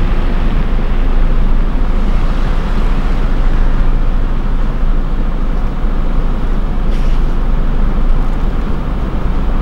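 Vehicle engine idling, a steady low rumble with a faint low hum.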